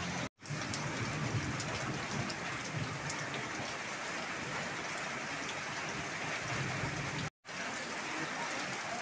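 Heavy rain pouring steadily onto a waterlogged lawn and puddles, a dense even hiss of drops, broken by two brief gaps of silence.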